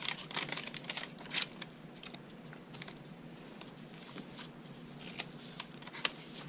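Paper pages and cards of a handmade junk journal rustling and tapping as they are handled and turned, a cluster of sharp rustles in the first second and a half, then sparser light taps and rustles.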